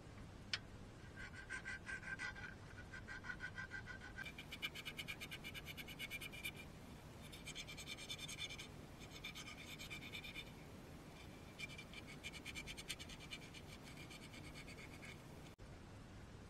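Hand filing and sanding of a slot cut in a cherry wood bowl: rapid back-and-forth scratching strokes of a small file and sandpaper on the wood, in bursts of a few seconds with short pauses.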